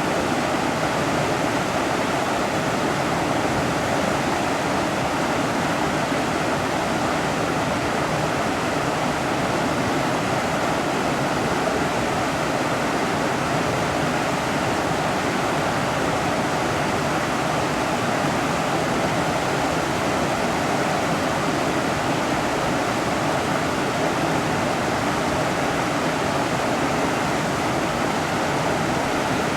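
Mountain river flowing steadily, a continuous even rush of water.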